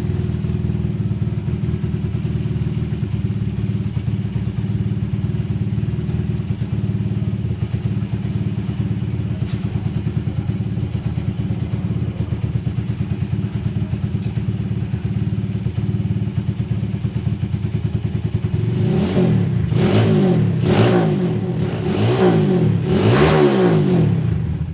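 Suzuki Satria FU motorcycle's single-cylinder engine idling steadily, then revved in about five quick blips near the end.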